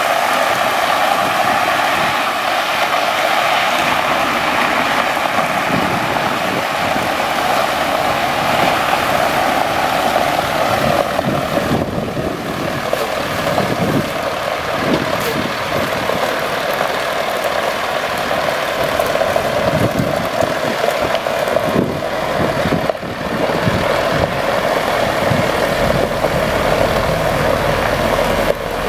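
Caterpillar 3126E inline-six diesel of a Ford F750 water truck running, with water gushing from the gravity-fed rear spray bar onto gravel as a steady hiss.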